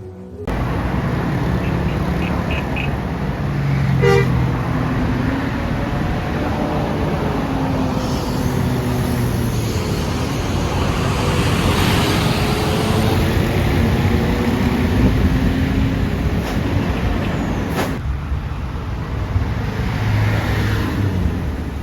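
Roadside traffic: buses and other vehicles passing with their engines running, engine pitch rising and falling as they go by. A short horn toot sounds about four seconds in.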